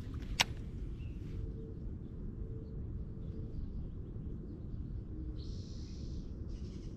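Low, steady wind rumble on a chest-mounted action camera's microphone, with one sharp click about half a second in and a brief hiss near the end.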